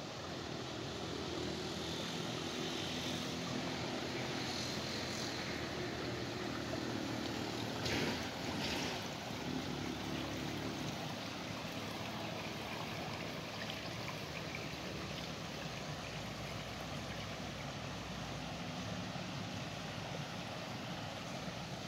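Water rushing steadily down a stone-lined channel and spilling over a small weir, with a short louder surge about eight seconds in.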